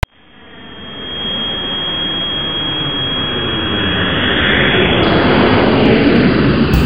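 Jet airplane sound effect: a steady engine rush with a thin high whine, fading in over about the first second. Near the end its pitch sweeps downward like a plane passing by.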